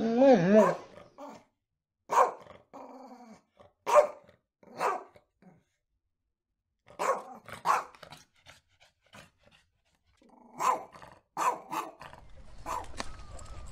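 Canine whining that wavers up and down in pitch, then short sharp barks and yips, about eight of them in ones and twos with pauses between.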